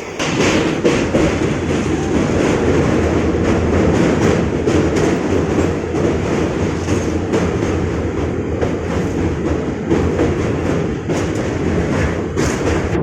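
A train running along the track: a steady, loud rumble of wheels on rail with repeated clicks and clatter from the rail joints.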